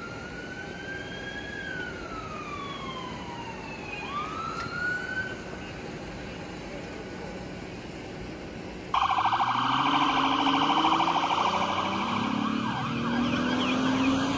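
Emergency-vehicle siren in a slow wail, its pitch rising and falling. About nine seconds in, it switches abruptly to a louder, fast-pulsing siren.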